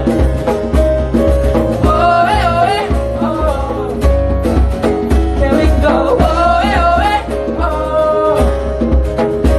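Acoustic version of a pop-rock song: accompaniment with a steady low end under a wavering vocal melody line.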